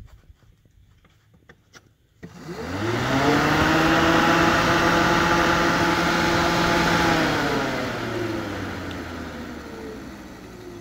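Electric radiator cooling fan of a 2006 GMC truck, running with the engine off, kicking on about two seconds in: it spins up within a second, runs steadily, then sags in pitch and level toward the end. The fan staying on with the engine off is the fault, which the owner traces to a bad fan relay.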